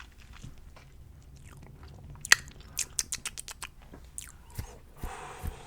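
Close-miked ASMR mouth sounds: a run of wet tongue clicks and pops, the loudest about two seconds in, followed by a short breathy hiss near the end.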